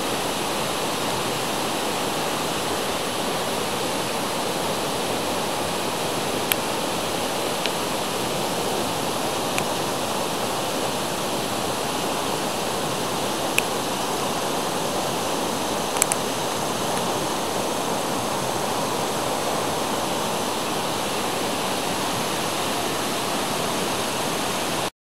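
Steady rushing noise of running water, even and unbroken, with a few brief sharp clicks scattered through it.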